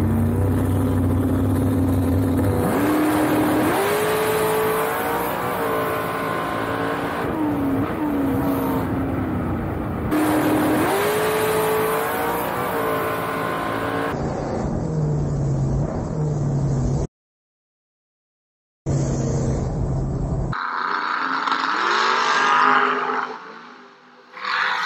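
Onboard sound of a bracket-racing dragster's engine. It runs steadily, then about two and a half seconds in it goes to full throttle, and its pitch climbs and drops back more than once as the car pulls. Near the end the engine sound cuts out briefly, and then drag-racing cars are heard from trackside.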